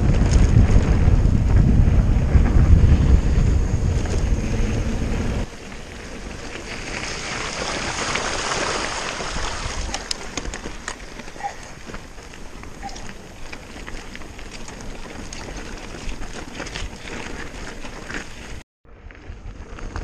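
Wind buffeting the handlebar camera's microphone, with mountain bike tyres rattling over a gravel road on a descent. About five seconds in it drops suddenly to the quieter crunch and tick of tyres rolling slowly over loose stones.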